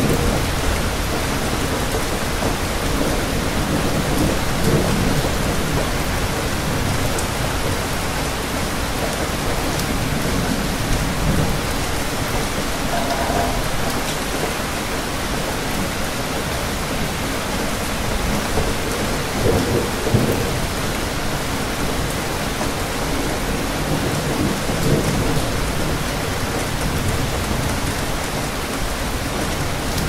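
Steady rain falling and pattering on hard surfaces, an even hiss, with low rumbles swelling and fading every few seconds.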